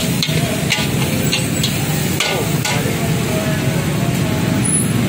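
Metal spatula scraping and clanking against a steel wok while stir-fried noodles are tossed, several quick strokes in the first three seconds, over a steady low roar.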